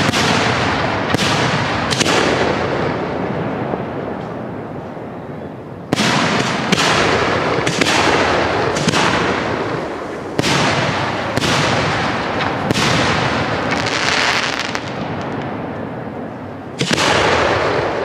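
Display-grade (1.3G) aerial fireworks shells bursting overhead: about a dozen sharp booms, each followed by a long rolling echo that fades out. There is a lull of a few seconds early on, a quick run of bursts through the middle, and one last boom near the end.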